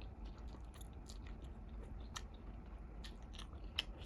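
Faint close mouth sounds of someone chewing instant ramen noodles: scattered wet clicks and smacks, with a sharper click about two seconds in and another near the end.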